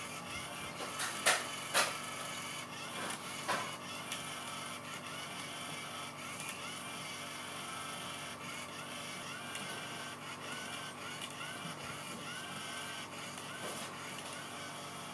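Motor of a battery-powered electric cat teaser toy whirring steadily as it swings its wand, with a repeating cyclic whine. A few sharp knocks come in the first few seconds.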